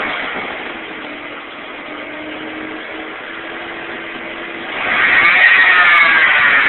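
Jeep 4.0L engine running with its power steering pump making a buzzing sound. The buzz fades over the first second and a quieter steady hum holds. Then, about five seconds in, a loud buzz swells up and slowly falls in pitch.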